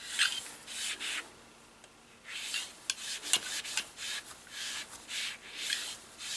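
An oiled shotgun swab brush on a cleaning rod scrubbing in and out of a Ramset nail gun's barrel tube. It makes repeated short rasping strokes, about one or two a second, with a brief pause about a second and a half in.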